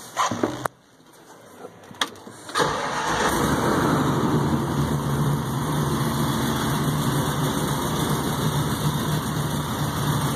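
Supercharged 6.2-litre LSA V8 crate engine starting: after a short noise and a click, it fires about two and a half seconds in and settles into a steady idle.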